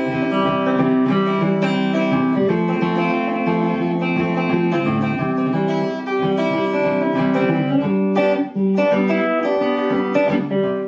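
Fender Stratocaster electric guitar (a 1983 two-knob model) played with a clean tone: a continuous passage of picked chords and single notes.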